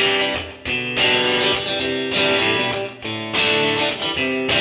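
Background music led by guitar, in short phrases with brief breaks between them.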